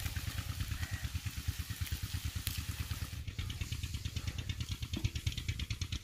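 A small engine running with a fast, steady, low chug of about ten pulses a second, under a faint hiss of minced mutton frying on a hot iron tawa. A light knock comes about five seconds in.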